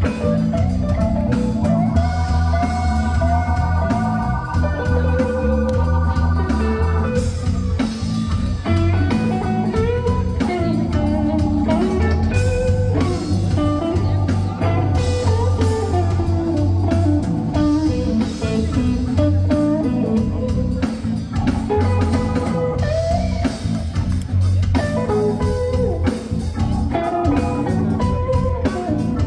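Blues music: an electric guitar playing lead lines over a bass line and a steady beat.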